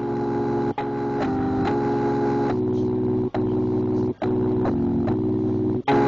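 Keyboard music with an organ-like sound: held chords that change every second or so, with short breaks between them.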